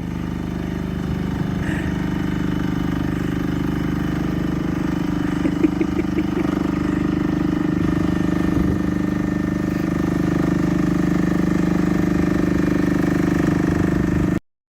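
UHI UME10P 1-tonne mini excavator's engine running steadily as the machine tracks slowly uphill, with a sharp knock about six seconds in. The sound cuts off abruptly near the end.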